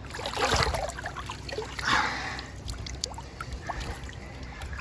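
Water splashing around a swimmer, in two bursts, about half a second in and about two seconds in, with trickling water between them.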